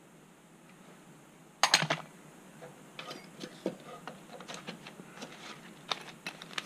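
Steel open-end wrench set down among other wrenches in a tool roll: a sharp metallic clatter about one and a half seconds in. Lighter scattered clicks follow as tools are handled.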